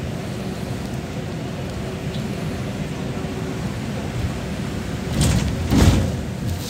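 Steady rumble of a vehicle driving on a wet road, heard from inside the vehicle. About five seconds in, a louder swoosh swells and fades as a bus passes alongside on the wet road.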